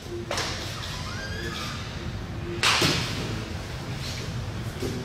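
A few sudden thuds and cloth swishes of martial-arts uniforms and bodies on a training mat, the loudest about two and a half seconds in.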